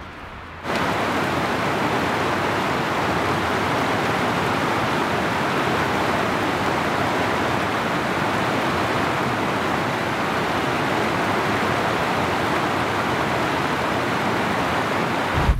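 Mountain stream rushing over rocks: a loud, steady wash of water that cuts in suddenly about a second in, after a fainter steady hiss.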